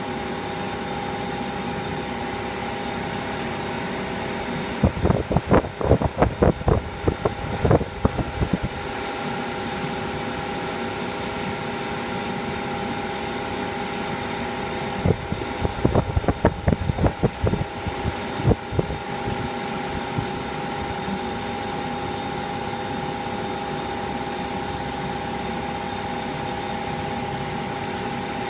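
Spray booth fan running with a steady hum, under the hiss of a compressed-air spray gun spraying paint; the hiss stops briefly a few times in the first half. Two spells of irregular loud knocks and bumps come about five and fifteen seconds in.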